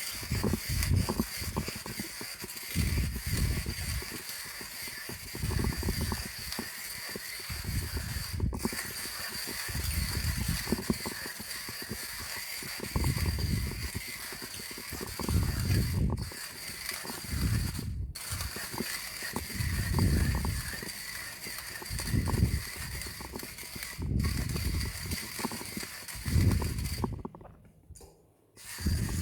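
Timemore Chestnut Slim manual burr grinder being cranked by hand, its burrs crushing coffee beans in a rhythmic grinding, rising and falling with each turn of the handle. The sound breaks off briefly near the end.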